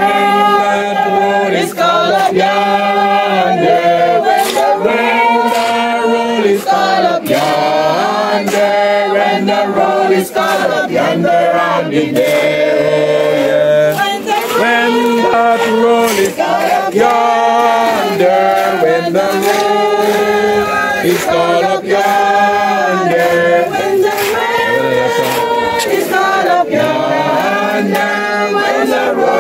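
A group of voices singing a gospel hymn together.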